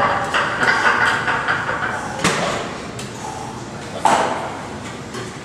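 Heavily loaded hack squat machine being worked through reps: the sled knocks and clanks on its rails, with two sharp metal knocks about two seconds in and again about four seconds in.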